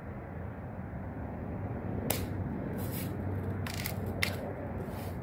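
Sharp clicks from a Daisy Red Ryder lever-action BB gun being shot at steel targets: two loud ones about two seconds apart with a fainter one between them, over a steady low rumble.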